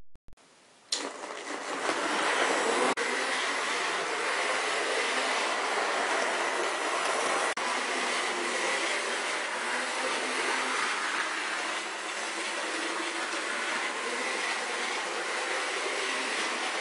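Rivarossi HO-scale model of a Nickel Plate Class S3 2-8-4 steam locomotive running on track. Its electric motor and gearing give a steady whir with a faint steady whine, starting about a second in, with a couple of sharp clicks along the way.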